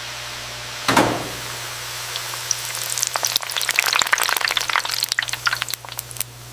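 Instant-noodle blocks frying in hot oil: a brief rush about a second in, then sizzling with dense crackling pops that thicken from about halfway, over a steady low machine hum.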